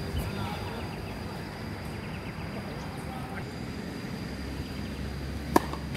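Tennis ball struck by a racket: one sharp, loud pock near the end, with a few fainter hits from across the court before it.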